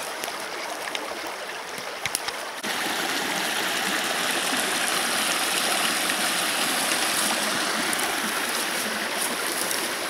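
Small forest stream running, a steady rush of water, which gets suddenly louder about two and a half seconds in and stays so. A few faint clicks sound over it near the start.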